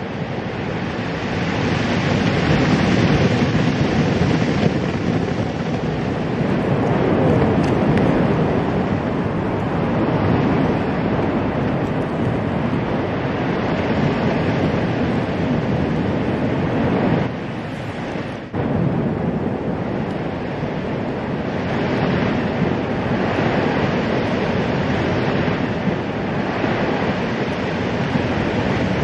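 Loud, steady rushing noise, like wind or surf, that dips briefly about seventeen seconds in.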